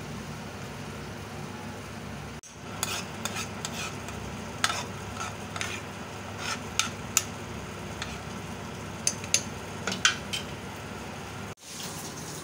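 Oil sizzling in a frying pan as stuffed green chillies cook in masala on low heat. A spatula scrapes and taps against the pan in irregular sharp clicks from about three seconds in until shortly before the end.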